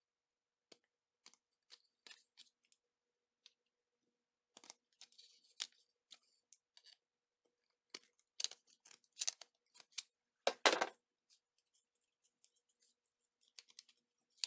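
Hand metal snips cutting a steel drop-ceiling cross tee to length: a scattered series of sharp metal snips and clicks, with the loudest cuts coming about eight to eleven seconds in.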